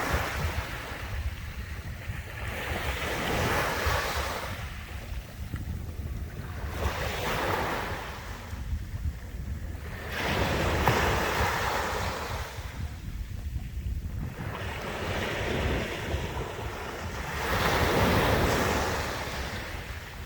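Sea waves washing onto the shore, a surge every few seconds that swells and falls away, over a steady low rumble of wind on the microphone.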